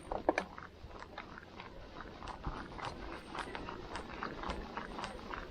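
Mountain bike ridden over a dirt trail: irregular clicks, knocks and rattles from the tyres and bike over stones and roots, over a low wind rumble.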